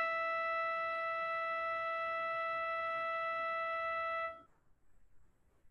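A single steady musical note at a fairly high pitch, played as a test tone in a pitch-listening exercise. It starts abruptly and cuts off after about four seconds.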